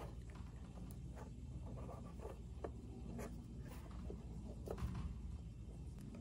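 Light, irregular scratching and clicking from hand work, over a steady low hum.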